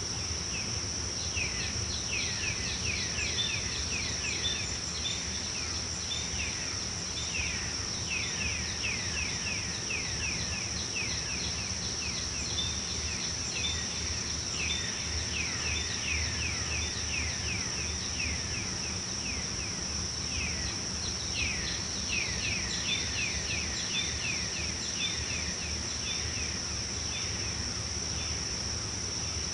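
Tropical forest ambience: a steady, high-pitched insect drone, with recurring runs of quick falling chirps coming in clusters, over a low rumble.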